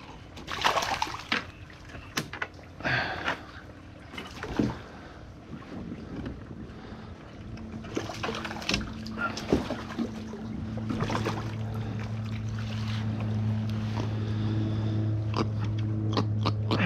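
A small jack crevalle landed beside a kayak: splashes and knocks against the hull in the first few seconds, then light clicks of rod and line handling. From about halfway through, a steady low hum grows gradually louder.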